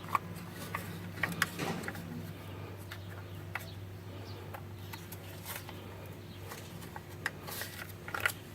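Scattered small clicks and taps of tailgate latch parts being handled and worked apart by hand, over a steady low hum.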